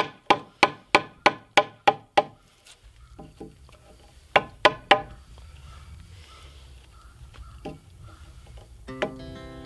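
Hammer striking a wood-handled chisel, cutting into the end of a log post: a steady run of sharp knocks about three a second for the first two seconds, then scattered blows, three loud ones about four to five seconds in. Background music comes in near the end.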